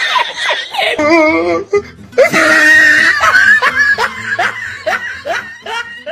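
Someone laughing in a run of short, repeated bursts over background music with a steady bass line.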